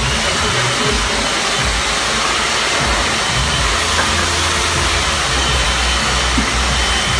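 Hair dryer blowing steadily, with music playing underneath.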